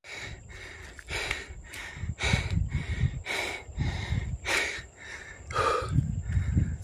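A person panting hard, about two to three quick breaths a second, out of breath from climbing uphill, over a low rumble on the microphone.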